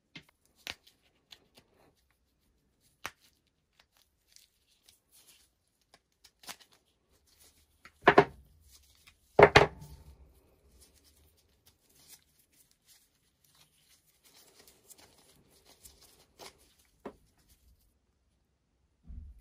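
Gloved hands handling an old, frayed canvas pump strap and its brass buckle: scattered rustles and light clicks, with two louder short noises about eight and nine and a half seconds in.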